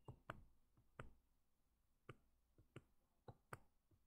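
Faint, irregular clicks and taps of a pen stylus on a drawing tablet while drawing, about eight scattered through the quiet.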